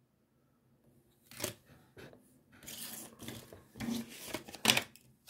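Foil cosmetic sample sachets and sample cards crinkling and rustling as they are handled and set down on a table. The crackles come in a run of sharp bursts, loudest about one and a half seconds in and just before the end.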